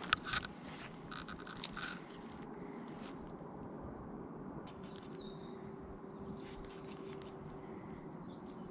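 Faint outdoor ambience with small birds chirping now and then. A few sharp clicks come in the first two seconds, and a low steady hum runs through the middle.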